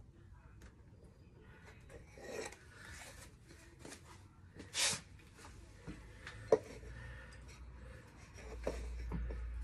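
Fingers turning a nut and washer onto the lower mounting stud of a motorcycle rear shock absorber: soft rubbing and scraping with a few small clicks, and one louder brief scrape about five seconds in. A low rumble comes in over the last couple of seconds.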